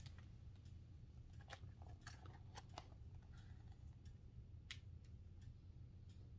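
Near silence with faint, irregular clicks from hands handling a hardcover picture book held up to the camera.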